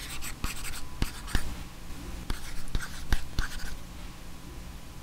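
Handwriting sound on paper: a quick run of irregular scratchy strokes and sharp taps that thins out after about three and a half seconds.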